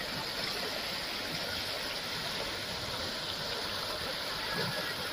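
Belsiri river in flood, its fast-flowing water making a steady, even rush.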